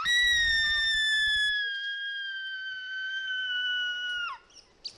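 A woman's very high-pitched squeal, as high as a scream, held as one long note for about four seconds, sliding slowly down in pitch and dropping away at the end. It is a squeal meant to set a dog howling.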